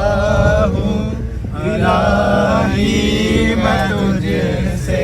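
Background vocal music: a male voice chanting a held, bending melody over a steady low drone.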